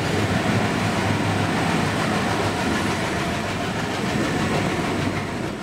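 Broad-gauge passenger train running through a rock-cut tunnel, heard from the carriage door: a steady rumble and rattle of wheels on the rails, coming out into the open near the end.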